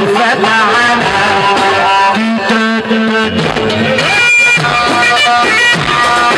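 Instrumental passage of live Egyptian sha'bi band music with no singing: an electronic keyboard melody with bending notes over hand and frame drums, loud and continuous.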